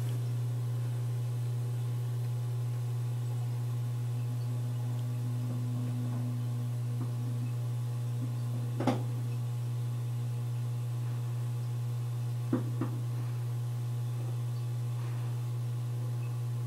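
SMC H36UL 36-inch ceiling fan running with a loud, steady motor hum, which the owner blames on its Chinese capacitors. A light click comes about nine seconds in, and two more a few seconds later.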